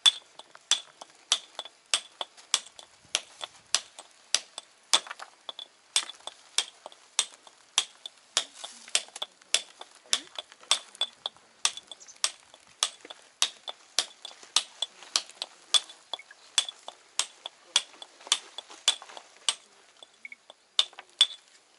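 Hand hammer striking a steel chisel held against a stone: a steady run of sharp, ringing metallic clinks, about two to three a second, chipping away the stone's surface in the final chisel stage of dressing it.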